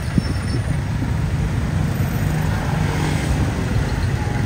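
City street traffic: a steady low rumble of vehicle engines and tyres going by, with a short click about a quarter second in.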